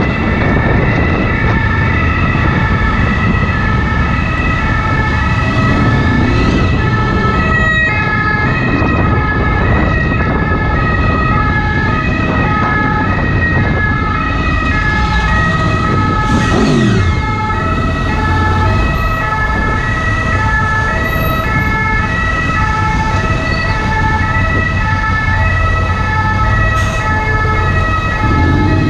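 French SAMU ambulance's two-tone siren, alternating steadily between a high and a low note. Beneath it is the low running of a Honda VFR800's V4 engine and the rumble of surrounding traffic, echoing inside a road tunnel.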